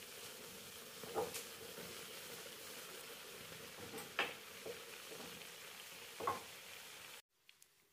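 Beignet dough sizzling as it deep-fries in hot oil in a pan, with a few sharp knocks scattered through. The sizzling stops abruptly near the end.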